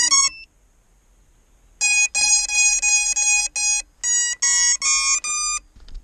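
An FPV quadcopter's ESCs beeping through the motors: a short rising chirp at the start, then after a pause a run of short even beeps at one pitch, then a few beeps stepping up in pitch, the tones the quad plays on power-up and arming.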